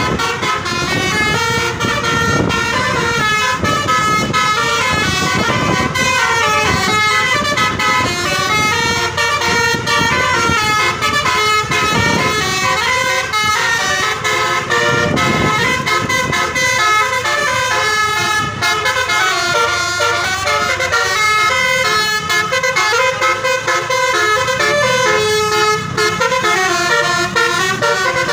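Bus telolet horn, a set of switched musical air horns, playing a fast melody of short stepping notes without a break.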